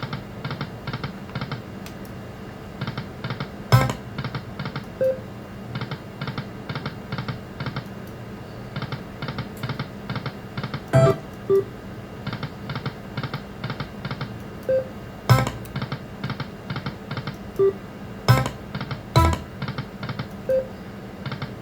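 Lightning Link Best Bet video slot machine playing its electronic game sounds through repeated spins: runs of quick even ticking, short beeps, and a few sharp louder clicks.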